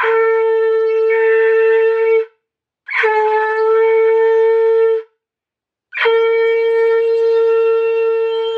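Conch shell (shankh) blown in three long, steady blasts with short silent gaps, each opening with a brief higher note that drops into the held tone; the third blast is the longest. The conch is sounded to close a Hindu puja.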